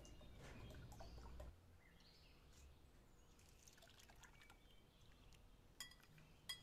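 Faint, soft pour of thick doogh (yogurt drink) from a bowl into a large aluminium cooking pot. Two light clinks near the end as a fork is scraped against the bowl.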